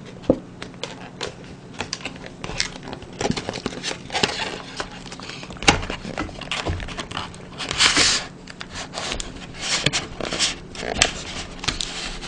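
Handling of takeout food containers and chopsticks: scattered clicks and taps with crinkling of packaging. A few louder rustles come in, the loudest about two thirds of the way through.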